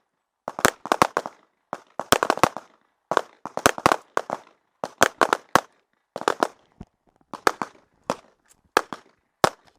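Pistol gunfire: rapid strings of shots, several in under a second at a time, with brief gaps between strings and sharp echoes after each shot. The strings thin to single shots near the end.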